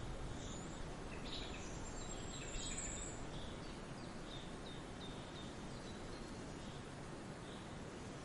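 Small birds chirping over a steady background hiss, with a quick run of short repeated chirps in the middle and a brief high trill before it.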